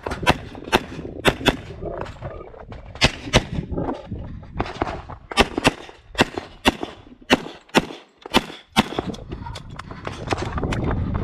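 Rapid pistol shots from an STI 2011 in .40 S&W, fired mostly in quick pairs with short pauses between strings, as the shooter works through a course of fire.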